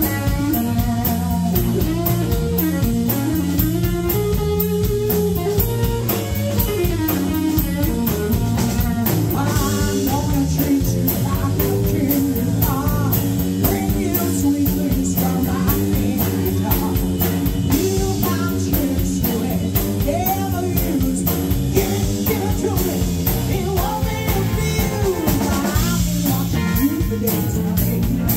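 Live band playing with electric guitars and a drum kit, and a woman singing.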